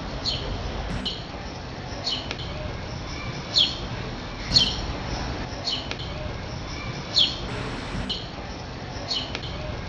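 House sparrow chirping: short high chirps, each falling in pitch, repeating about once a second.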